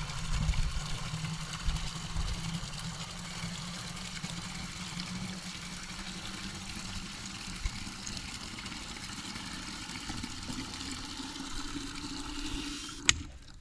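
Water running steadily into a 5-gallon poultry waterer as it fills, the tone rising toward the end, then shut off with a sharp click about thirteen seconds in.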